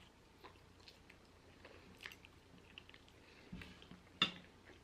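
A person chewing fries topped with animal-style sauce and grilled onions: a scatter of small mouth clicks and smacks, with one sharper click near the end.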